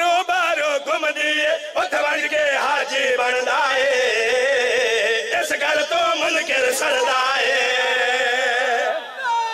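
Men's voices chanting a qasida, devotional verse, into microphones in a long wavering melodic line that carries on without a break.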